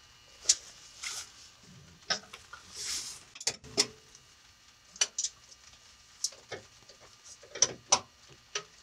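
Socket wrench on the starter's lower mounting bolt: irregular sharp metallic clicks and clinks, about a dozen over several seconds, as the bolt is worked loose.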